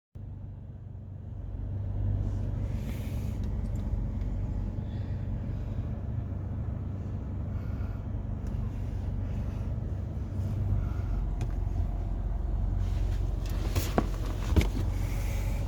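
Car on the move: a steady low rumble of engine and road noise, with two sharp clicks near the end.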